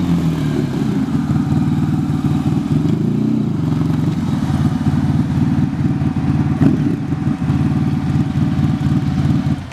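Ariel Ace motorcycle's Honda V4 engine running with an even pulse, rising and falling briefly in pitch about three seconds in.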